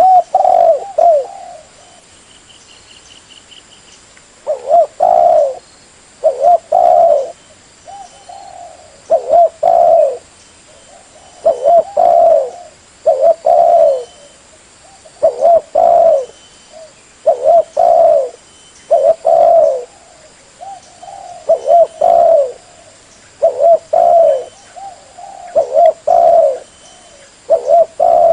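Spotted dove (tekukur) cooing: short phrases of several mellow coos, repeated about every two seconds with a brief pause near the start.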